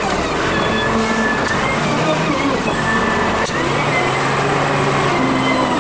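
Volvo BM 4300 wheel loader's diesel engine working as the bucket pushes dirt, the recording sped up five times, so the engine note jumps in pitch every half second or so.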